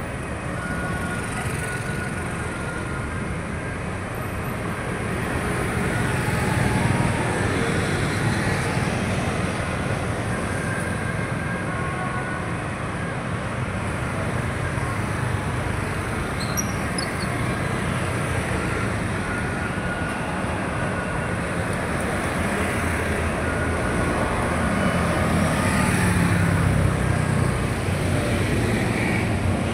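Steady vehicle running noise, a continuous low sound with no clear events.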